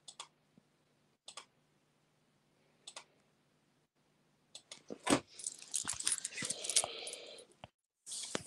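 Scattered sharp clicks, then about five seconds in a couple of seconds of dense clattering and rustling, with a faint low hum under the first half.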